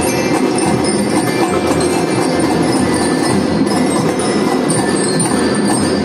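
Children's marching drum band playing: bell lyras (marching glockenspiels) ringing out a tune over snare and bass drums, in a reverberant hall.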